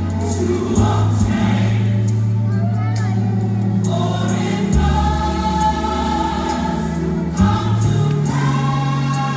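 Gospel choir song: a choir sings over deep held bass notes that shift to new pitches a few times, with a light, regular percussion tick.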